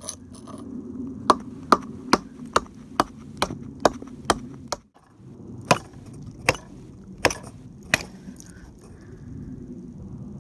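A small tomahawk-style axe chopping into a tree branch: a run of eight sharp strikes at about two a second, a short pause, then four slower strikes.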